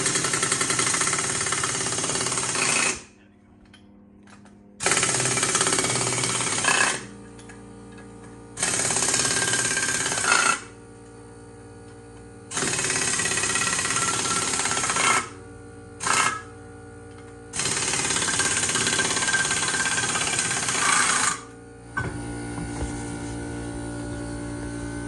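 Air impact wrench rattling in six runs of about two to four seconds, one of them very short, spinning lug nuts off a camper trailer wheel. Background guitar music comes in near the end.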